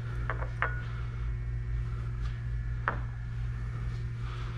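A brush stirring lithographic etch in a small glass jar, clicking against the glass: three quick clicks near the start and one about three seconds in. A steady low hum runs underneath.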